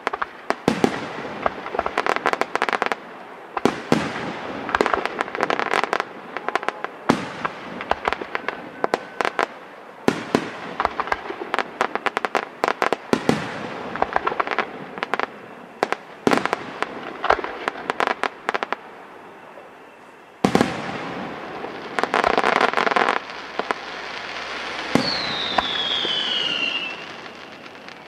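Morena Fireworks aerial display: a rapid, irregular series of sharp bangs and crackling from bursting shells and stars. About two-thirds of the way through a heavy bang sets off a dense wash of crackle, and near the end a firework whistle falls in pitch.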